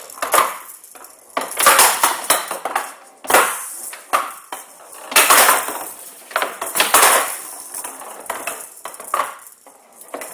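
Showdown rally: the ball, with metal pellets inside, rattles as it rolls across the wooden table, with sharp clattering hits as it is struck by the bats and bounces off the side walls, every second or two.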